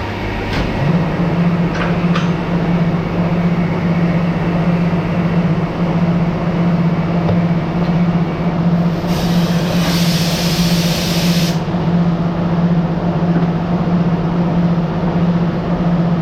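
Factory machinery running steadily with a constant low hum. A burst of hiss lasts about two and a half seconds just past the middle.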